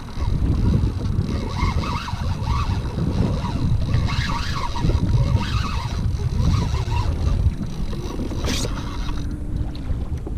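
Wind buffeting the microphone, with chop sloshing against a plastic kayak hull, plus a single short knock near the end.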